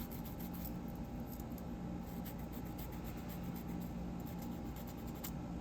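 Rust eraser scrubbing rust spots off the small metal parts of a disassembled dial fidget toy: faint scratchy rubbing with light ticks, over a steady low hum.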